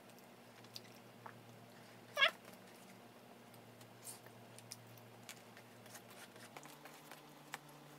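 A cat meows once, briefly, about two seconds in. Faint clicks of a plastic fork and eating go on underneath.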